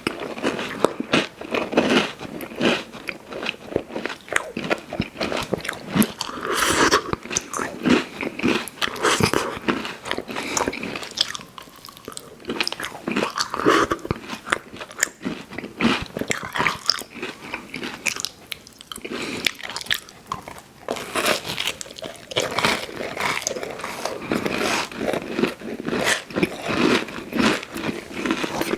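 Close-miked ASMR eating: a person biting and chewing crunchy candy, a dense, irregular run of crunches and wet mouth clicks.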